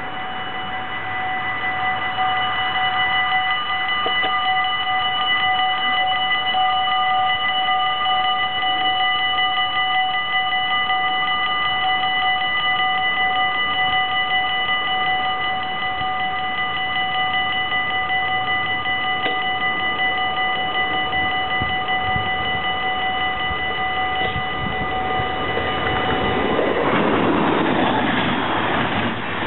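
Level-crossing warning bells ringing steadily, several pitches sounding together, while the half-barriers lower. About 27 seconds in, the ringing gives way to the rushing noise of a yellow NS double-deck passenger train passing over the crossing.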